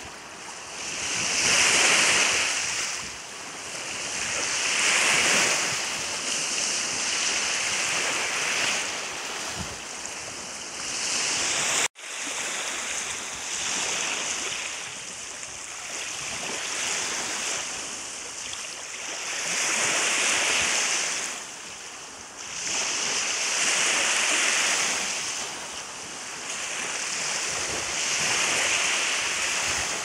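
Small lake waves breaking and washing up on a sand-and-pebble shore, each wash swelling and fading every few seconds. The sound cuts out for an instant about twelve seconds in.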